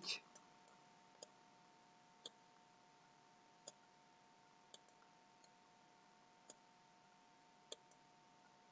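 About seven faint, sharp computer-mouse clicks at irregular intervals, roughly a second apart, over a faint steady electrical hum.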